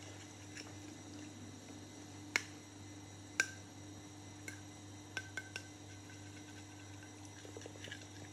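Sharp clicks and taps from fingers handling a small metal Vaseline lip balm tin. Two louder clicks come about two and three seconds in, then several lighter ones, over a faint steady hum.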